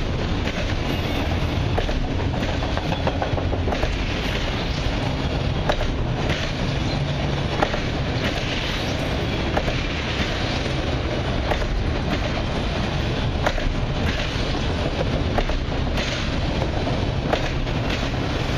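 Autorack freight cars rolling past, a steady rumble of wheels on rail with irregular sharp clacks every second or two.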